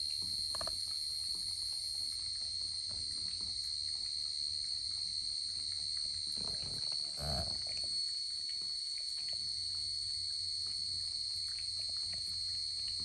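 A cat lapping water from a basin: faint soft licking ticks under a steady high-pitched whine, with a short low bump about seven seconds in.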